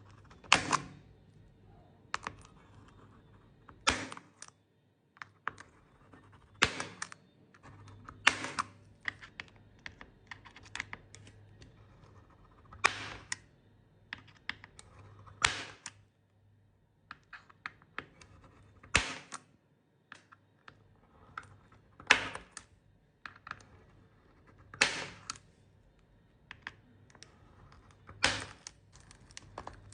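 Small hand tools clicking and tapping against an iPhone's cracked back glass and frame during a back-glass replacement: a sharp loud click every two to three seconds with lighter ticks between, over a faint low hum.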